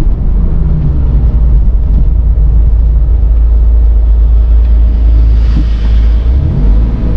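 Porsche 930 Turbo's air-cooled turbocharged flat-six running under way, heard from inside the cabin as a loud, steady low rumble with road noise. The rumble dips briefly near the end, then picks up again.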